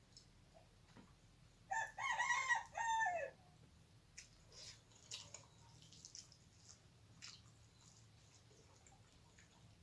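A rooster crows once, about two seconds in, a loud call of about a second and a half that falls at the end. Faint scattered clicks of eating by hand follow.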